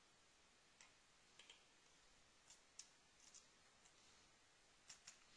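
Near silence with a few faint, scattered clicks from a computer keyboard and mouse as text is entered.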